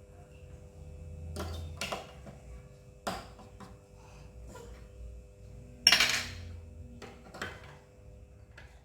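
A few short knocks and clatters of household objects being handled, the loudest about six seconds in, over a faint steady hum.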